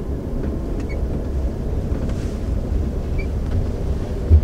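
Steady low rumble of a car rolling slowly along a paved road, heard from inside the cabin, with a short low thump near the end.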